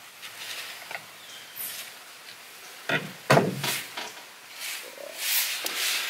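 Hand-work handling noise while crimping spade connectors onto wires at a small switch panel: light clicks and handling of wire and a crimping tool, a few sharp knocks about three seconds in, and rustling near the end.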